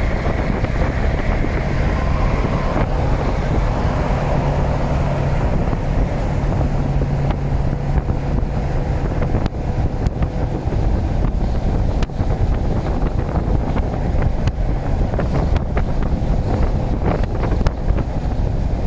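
Freight train rolling past, a steady low rumble with wind buffeting the microphone. A low hum runs through the first half, and clicks and knocks come through in the second half.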